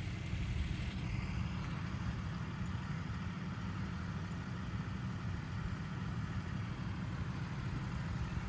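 Steady low rumble of vehicle engines running, with a faint even hiss above it.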